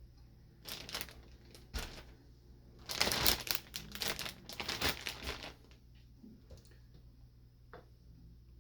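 Plastic freezer bag crinkling as it is handled: a couple of short rustles, then a longer stretch of dense crinkling from about three seconds in, dying away after about five and a half seconds.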